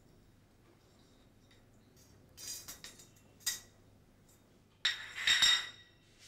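Brief metallic jingling and clinking in two bursts, a shorter one about two and a half seconds in and a louder, ringing one about five seconds in, over a faint low hum.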